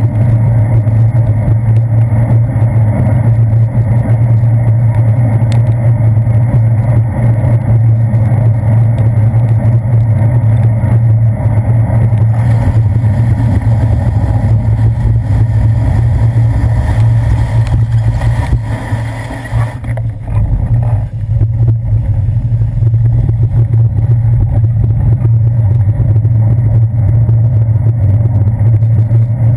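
Loud, steady rumble of wind and road vibration picked up by a handlebar-mounted GoPro on a bicycle riding over wet pavement, with a steady low hum underneath. The rumble eases for a couple of seconds about two-thirds of the way through.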